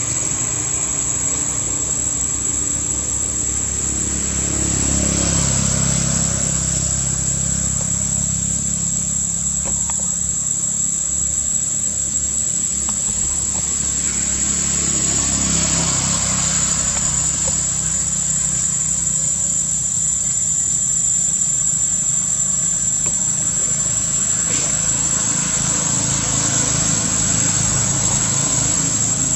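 Steady, high-pitched insect drone with a low rumble of traffic beneath it, the rumble swelling twice as vehicles pass.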